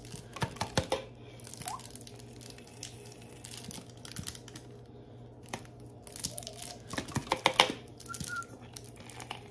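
Spoon scraping and tapping as sour cream is scooped from a plastic tub into a bowl, in two bursts of sharp clicks and scrapes: about a second in and again around seven seconds in. A steady low hum runs underneath.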